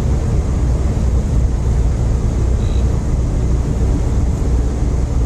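Steady low drone of a semi truck's engine and road noise heard inside the cab while driving.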